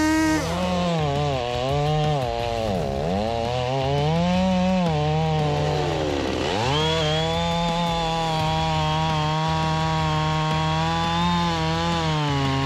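Gasoline chainsaw cutting through a large log, the engine running under load. Its pitch drops sharply and recovers twice in the first half, then holds steady.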